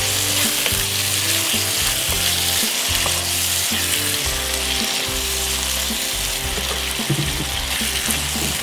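Chopped onions and tomatoes sizzling steadily in hot oil in a nonstick wok while being stirred with a spatula. Low background music plays underneath.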